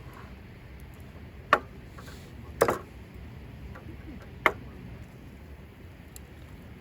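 Three short, sharp knocks a second or two apart, the second one doubled, over a faint steady background.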